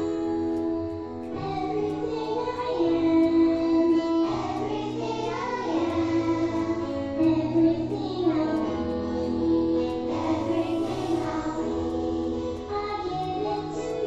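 A child singing over keyboard backing music, the accompaniment holding long steady chords under the sung melody.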